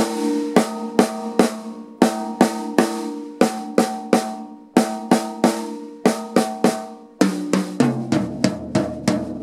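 Acoustic drum kit: sticks striking the snare drum and high tom in a steady run of triple-stroke patterns, each hit ringing out. About seven seconds in, the strokes come faster and deeper drums join with a low ring.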